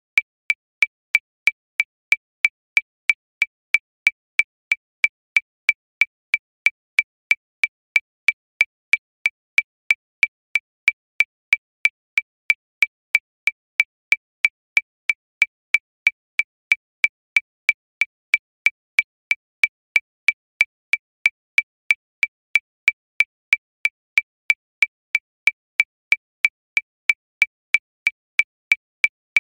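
Metronome ticking steadily at 185 beats per minute, about three short, high clicks a second, all at the same pitch.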